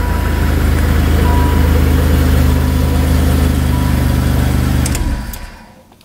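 The car engine of a 1993 Dodge Shadow idles steadily, just started with a newly cut copy key. The running sound falls away about five seconds in.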